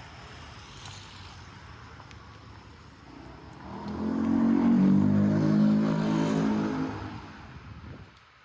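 A car passing close by on the street: its engine and tyres swell up about halfway through, peak for a couple of seconds, then fade away.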